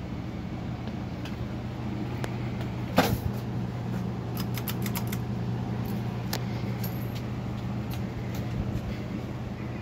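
Encon Monarch 52-inch ceiling fan running with a steady motor hum, with a sharp knock about three seconds in and a few light clicks a second or two later.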